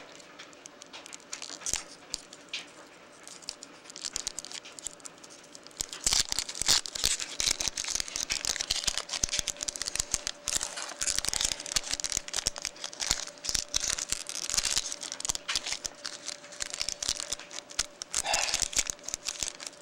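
Foil wrappers of baseball-card packs being torn open and crinkled while the cards inside are handled. Sparse rustling at first, then steady crinkling and tearing from about six seconds in.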